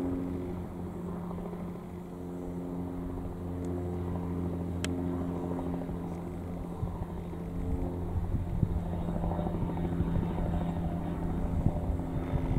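A steady, low engine drone running at constant speed throughout, with an uneven low rumble joining it in the second half and one sharp click about five seconds in.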